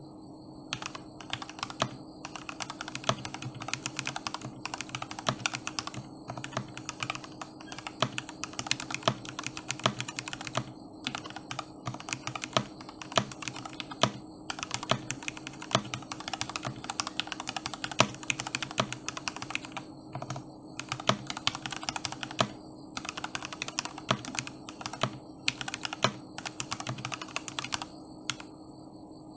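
Continuous fast typing on a GK61X mechanical keyboard with lubed and filmed Gateron Milky Black linear switches, set on a deskmat. There are many rapid keystrokes, broken by a few short pauses.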